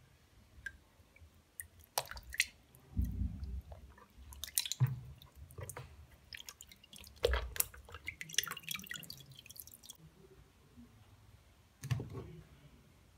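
Raw flour dough being squeezed and worked by hand in a plastic basin of water, with irregular squelches, splashes and drips as the starch is washed out of it to leave the gluten. The handling comes in bursts from about two seconds in until near ten seconds, with one more splash near the end.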